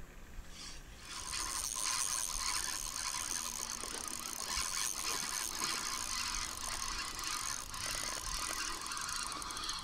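Spinning reel being cranked steadily, its gears whirring and rattling as the lure is retrieved; it starts about a second in.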